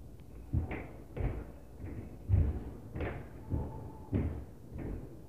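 Heavy stomping footsteps on the floor of the upstairs apartment, heard through the ceiling as a run of dull thuds, about one every half second or so.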